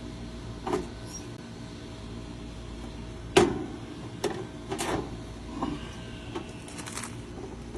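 Scattered clicks and knocks of tools and metal parts being handled, about half a dozen, the loudest about three and a half seconds in, over a steady low hum.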